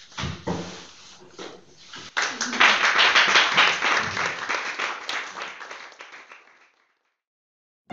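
An audience applauding, starting about two seconds in, quickly reaching full strength, then fading away. Before it, a few knocks as papers are handled at a lectern.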